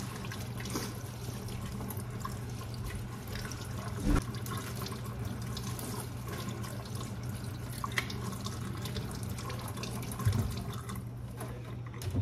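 Kitchen faucet running steadily into a stainless-steel sink as tomatoes and green chiles are rinsed under the stream by hand. Two dull knocks, about 4 and 10 seconds in.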